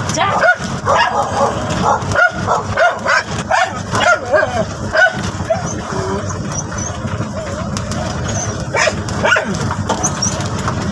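A dog barking in a quick series for about five seconds, then twice more later, over the steady running engine of a TVS King Deluxe three-wheeler.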